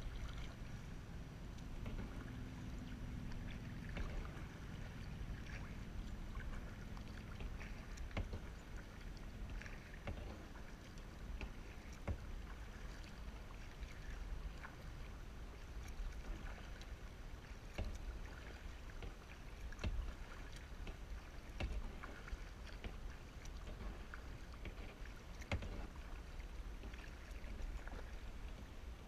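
Kayak paddle strokes in calm water: soft splashes and drips about every two seconds over a steady low rumble.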